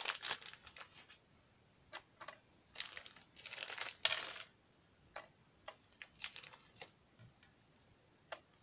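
Small sealing-wax beads clinking and rattling as they are tipped into a wax melting spoon. There are short bursts of rattling, the longest and loudest about 3 to 4 seconds in, then a few scattered single clicks.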